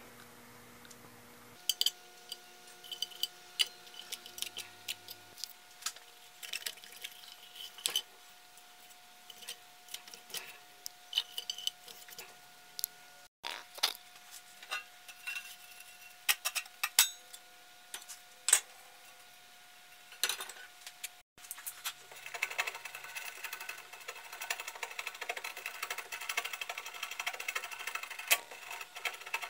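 Small metal parts and hand tools clinking and clattering on a wooden workbench as a vintage lawn edger is taken apart. From about two-thirds of the way in, a steady scraping and scrubbing on metal takes over, as the edger's steel shaft is cleaned by hand.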